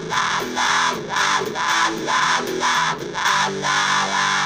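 Electric guitar played through a MAD BOX Big Muff 'Black Master' fuzz pedal, switched on: fuzz-distorted chords struck about twice a second, then a held chord near the end.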